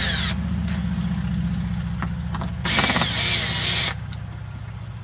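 Cordless drill/driver backing screws out of a wooden frame joint. A short run of the motor ends just after the start, and a longer run of about a second and a half comes around three seconds in.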